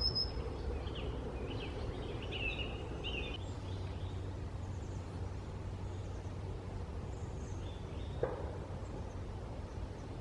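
Outdoor woodland ambience: a steady low rumble of wind with scattered short bird chirps, busiest in the first few seconds, then fainter and higher. A single short knock about eight seconds in.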